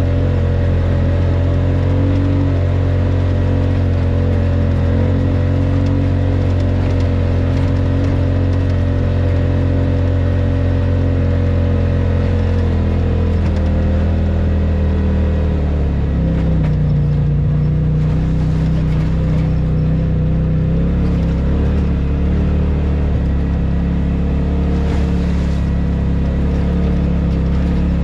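Polaris RZR side-by-side's engine running steadily while driving a dirt trail, its note shifting to a different pitch about halfway through.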